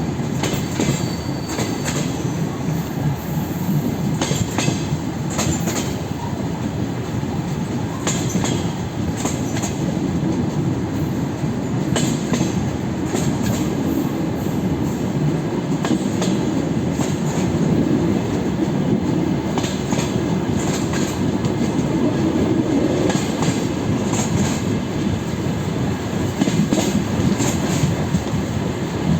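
DR1A diesel multiple unit running at speed, a steady rumble with wheels clattering over rail joints every few seconds and some high-pitched wheel squeal, heard from the train's window.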